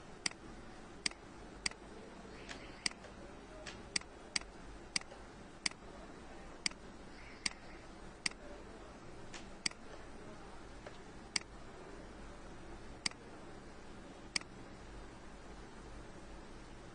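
Computer mouse button clicking as the smudge brush is clicked and dragged: irregular sharp clicks, one or two a second at first, then spaced a few seconds apart and stopping near the end, over a faint steady hum.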